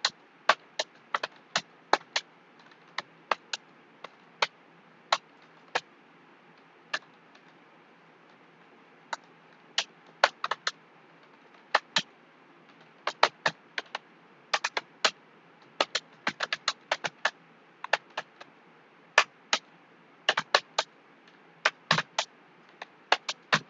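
Computer keyboard being typed on at an unhurried, uneven pace: single sharp key clicks with short pauses between them, over a faint steady hiss.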